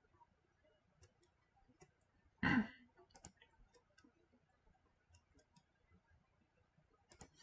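A quiet room with faint scattered clicks, and one short, loud breath about two and a half seconds in from a man at a headset microphone. A softer breath follows near the end.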